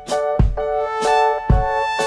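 Instrumental background music with held notes over a low beat.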